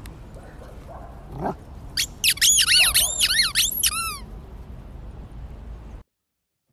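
A dachshund chomps on a toy ball and sets off a rapid run of about ten high squeaks in roughly two seconds. Each squeak rises and falls in pitch.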